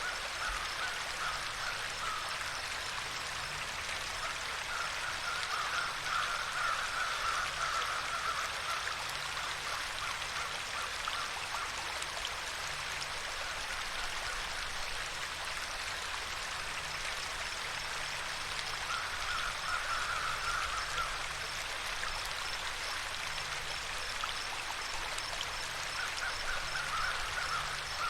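Steady hiss of running water. Over it, a higher chirring animal call swells and fades several times, loudest about five seconds in and again around twenty seconds in.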